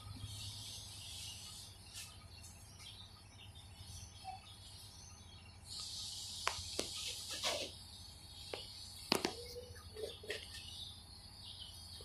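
Faint outdoor insect buzzing, high-pitched, swelling near the start and again from about six to eight seconds in. Scattered short bird chirps sound through the middle.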